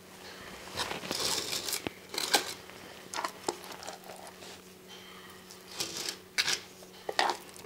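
Wet gypsum plaster being scooped out of a rubber mixing bucket and smeared into a drilled hole in the wall: a run of short, irregular scraping and smearing noises.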